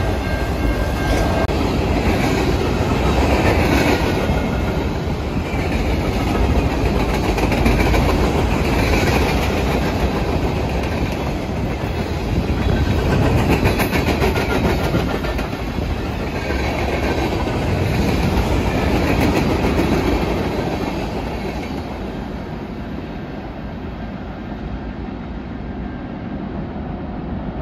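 Norfolk Southern freight train of auto racks and mixed freight cars rolling past: a continuous rumble of wheels on rail that swells and eases as the cars go by.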